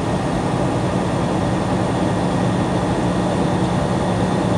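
Steady drone of a truck heard from inside its cab, with a constant low hum under an even rush of road and engine noise.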